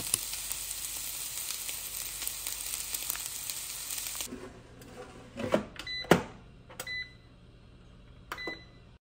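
Fried rice sizzling in a frying pan as a fork stirs it. After about four seconds the sizzle stops and an air fryer's control panel beeps three times as its buttons are pressed, with a few knocks in between, the loudest about six seconds in.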